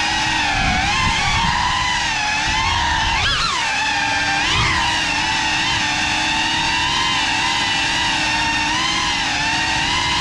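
Motors and propellers of a 6S iFlight Cinelog 35 ducted cinewhoop FPV drone whining in flight, the pitch rising and falling with the throttle. Two quick throttle punches about three and four and a half seconds in.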